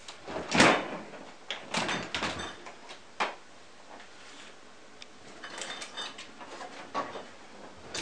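Refrigerator door being swung shut and opened again by hand: a loud thud as it shuts about half a second in, a few more knocks and rattles over the next three seconds, then lighter clicks of the door and handle around six to seven seconds in.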